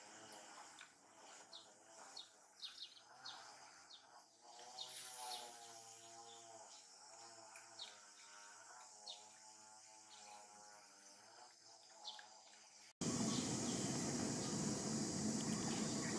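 Outdoor ambience with short, high bird chirps scattered through it and a faint wavering tone in the background. About 13 seconds in, it cuts abruptly to a louder, steady hiss of background noise.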